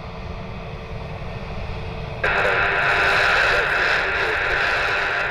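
Aviation-band radio static: about two seconds in, a loud, steady hiss switches on as a transmission is keyed with no voice on it. A low rumble runs underneath.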